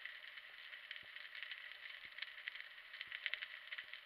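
Underwater crackle of a rocky reef heard through a submerged camera: a dense, steady patter of small clicks, with a faint low knock about once a second.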